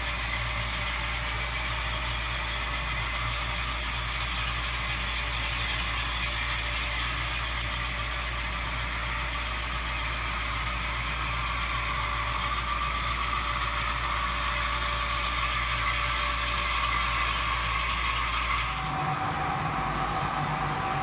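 HO scale model diesel locomotive's sound decoder playing a steady diesel engine sound through its small speakers, over the rolling rumble of a long train of model intermodal cars on the track. The sound cuts off abruptly near the end.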